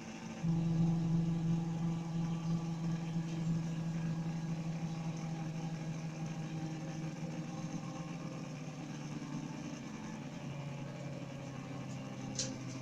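Six-axis CNC hot-wire cutting machine running, a steady motor hum that starts about half a second in and steps down in pitch about seven seconds in and again near ten seconds, as the axis speed changes.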